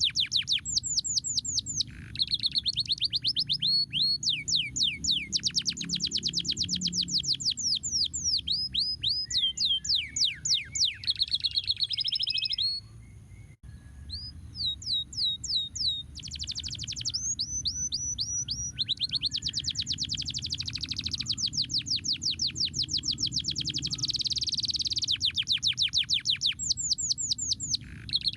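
Domestic canary singing long rolling trills of fast, repeated down-slurred notes, changing from one tour to the next, with a brief pause about halfway through. A low steady background noise runs underneath.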